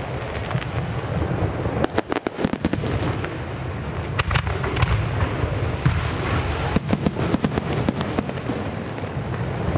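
Aerial firework shells bursting in a rapid barrage: clusters of sharp bangs over a continuous low rumble.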